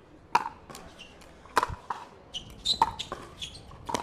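Pickleball rally: paddles striking the plastic ball with sharp pocks, four times a little over a second apart, with short high squeaks in the second half.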